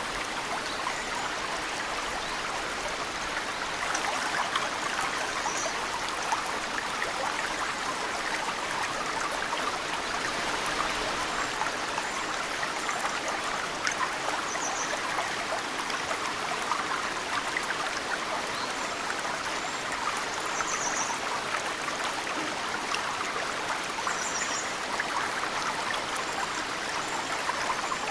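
Mountain stream running steadily, with meltwater drops falling into it. A small bird gives short high chirps every few seconds.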